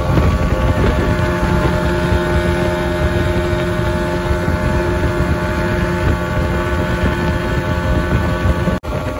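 A small speedboat's 40-horsepower outboard motor running steadily at cruising speed, with heavy wind buffeting on the microphone and the rush of spray off the hull. The sound drops out for an instant near the end.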